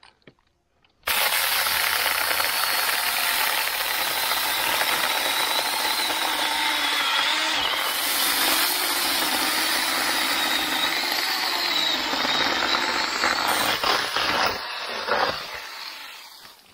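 Avhrit 6-inch battery-powered mini chainsaw cutting through a fallen log. It starts suddenly about a second in, and the motor whine and chain run steadily through the wood for about fourteen seconds. It winds down near the end as the cut goes through.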